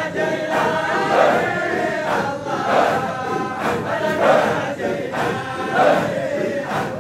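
A large crowd of men chanting dhikr together in a repeating rhythmic chant, many voices at once.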